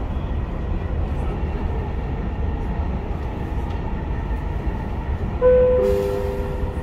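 Dubai Metro train running, a steady low rumble heard inside the carriage. Near the end a two-note falling chime sounds, the signal before the next-station announcement.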